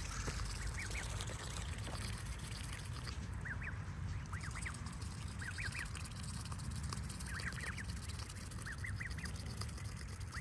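Waterfowl calling softly: short calls in clusters of two to four, coming every second or two, over a steady low background hiss.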